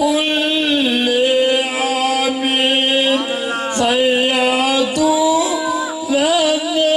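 A man singing a devotional naat into a microphone, holding long, wavering notes that bend up and down, with a brief break about four seconds in.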